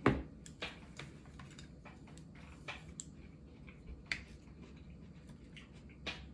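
Light clicks and knocks of tableware as wooden utensils are set against a plate and table. A sharper knock comes right at the start, then scattered light taps.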